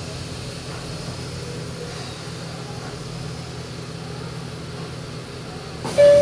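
Meitetsu 6000 series electric train standing still, its onboard equipment humming steadily. A loud two-note chime starts near the end.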